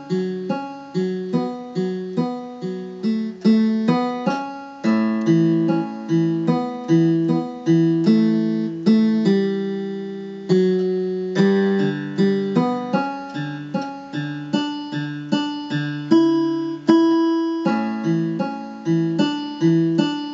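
Electronic keyboard on its steel-string guitar voice, playing a slow arpeggiated introduction: about three plucked notes a second, each fading, over a repeating bass pattern that starts on D and F sharp.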